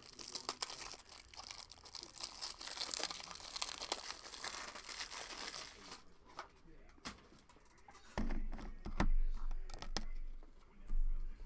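Packaging being torn open and crinkled, a dense crackle of fine clicks for about six seconds. It is followed by a few sharp clicks and dull knocks of handling.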